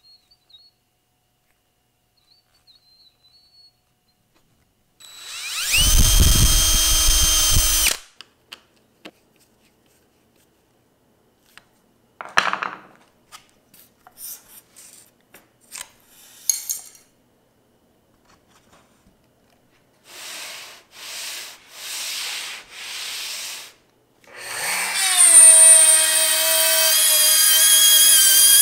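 Handheld Bosch electric router switched on for about three seconds and switched off, followed by scattered clicks and knocks and four short hissing bursts. The router then spins up again and runs steadily, cutting a straight slot in MDF.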